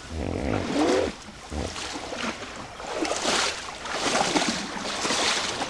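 Hippopotamuses splashing and sloshing in a shallow pool of water, with a short pitched call in the first second and louder splashes about three and five seconds in.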